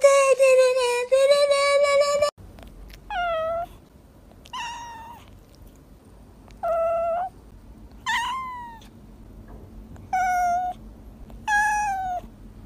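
A cat meowing six times in short calls, each about half a second long and falling in pitch at the end. Before them, a loud long held, wavering tone cuts off sharply about two seconds in.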